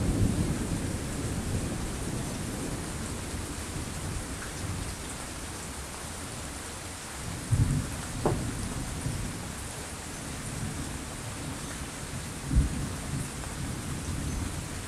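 Thunderstorm: steady rain with thunder rumbling. A rumble dies away at the start, another comes about halfway through, and a short, loud clap of thunder comes near the end.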